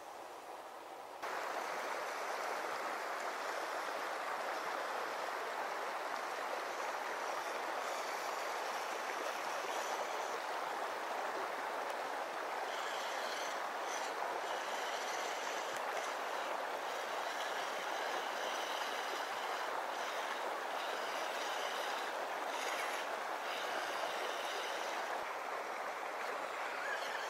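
River water flowing steadily, cutting in suddenly about a second in. Over it comes a faint, on-and-off high whine from the electric motor of a Vaterra Slick Rock RC truck driving through the shallows.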